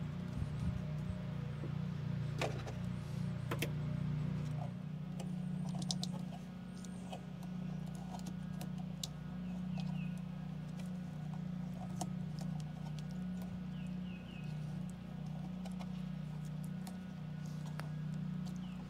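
A steady low hum, over which come a few sharp clicks and knocks of hands working wiring against the pool heater's sheet-metal cabinet.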